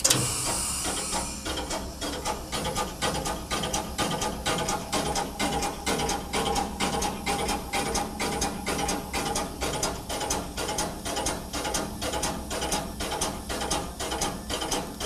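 Small steam tank locomotive working, heard on its footplate: a fast, even beat of clanks and chuffs, with a burst of steam hiss at the start.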